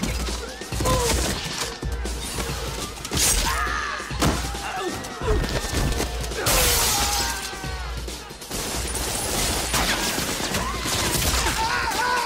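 Film fight soundtrack: club music with a heavy pulsing bass beat, cut through by sharp hits and thuds, a loud shattering crash about six and a half seconds in, and people yelling and screaming.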